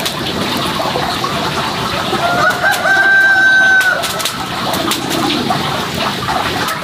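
A rooster crowing once near the middle, a long call rising at the start and then held for about a second and a half. Under it, an open wood fire crackles with scattered pops.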